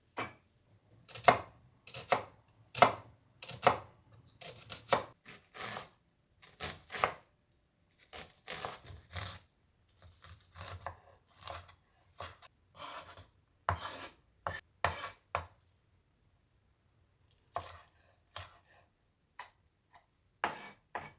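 Knife chopping on a cutting board in uneven strokes, about one or two a second, with short pauses between runs.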